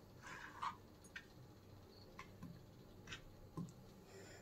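Kitchen knife cutting through a block of paneer onto a plastic cutting board: a few faint, irregular taps and a soft slicing scrape.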